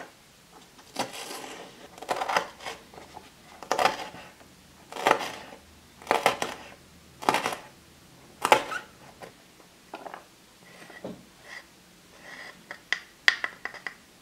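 Small knife slicing through a green onion stalk on a miniature wooden cutting board: about seven crisp, crunching cuts a little over a second apart. Lighter, quicker clicks and taps on the board follow near the end.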